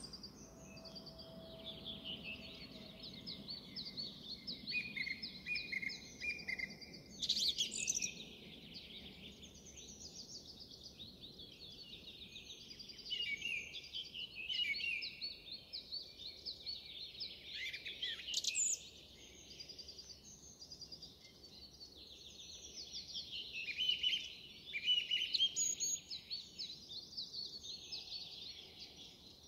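Song thrush singing: a long run of short, high-pitched phrases with brief pauses, a few notes standing out louder about 7 and 18 seconds in.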